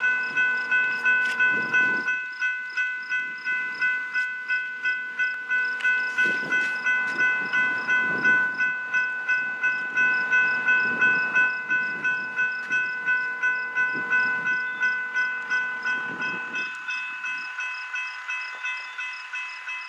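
Railroad grade-crossing bell ringing in quick, even strokes, about two to three a second, growing a little fainter near the end. A low rumble runs beneath it and stops about three seconds before the end.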